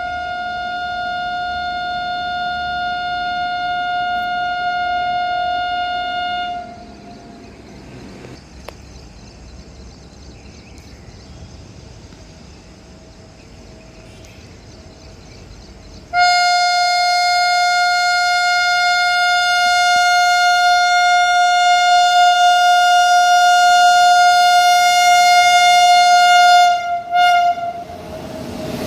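WAP-7 electric locomotive horn sounding two long, steady blasts of one tone: the first ends about six and a half seconds in, and after a quieter stretch of about ten seconds the second, louder blast sounds until it breaks into a few short stutters and cuts off near the end. The horn warns the station as the express approaches to run through without stopping.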